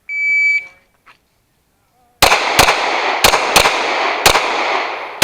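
Electronic shot timer giving its start beep, a short steady high tone, then about two seconds later six pistol shots fired over about three seconds, the first four in two quick pairs, each shot trailing off in echo.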